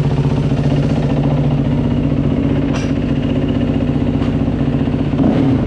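Dirt bike engine idling steadily after being kick-started.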